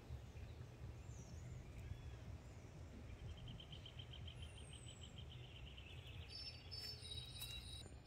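Quiet outdoor ambience: a low steady rumble with faint bird calls, a rapid faint trill through the middle and a brief high falling whistle.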